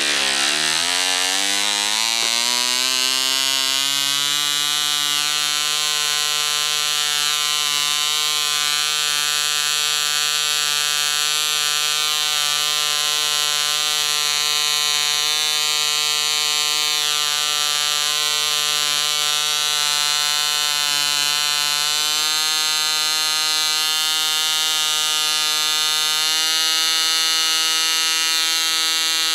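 Russian-made MK-17 model diesel (compression-ignition) engine running with its propeller. It catches right at the start and its pitch climbs over the first few seconds to a steady high buzz. Its note shifts slightly twice in the last third, as the compression screw on top of the head is turned.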